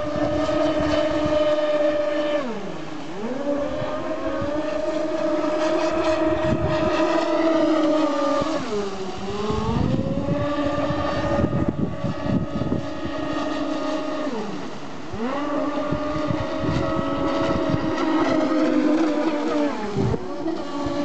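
Twin brushless electric motors of a large RC speedboat whining at high speed. Four times the pitch drops sharply as the throttle is eased, then climbs back to full speed.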